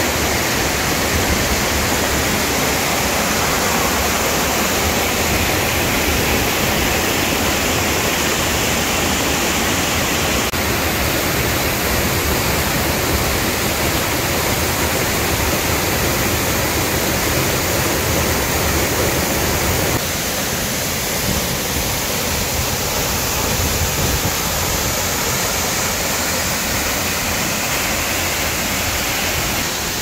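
Waterfall pouring into a rocky plunge pool: a loud, steady rush of falling water. The rush drops slightly about two-thirds of the way through.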